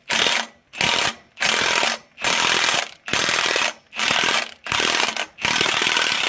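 Cordless impact wrench hammering in about eight short bursts, each roughly half a second long, as the trigger is pulled and released again and again.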